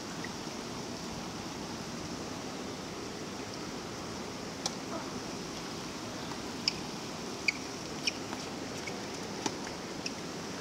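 A tennis rally on a hard court: a string of about six short, sharp ball-strike and bounce ticks from about five seconds in, over steady background noise.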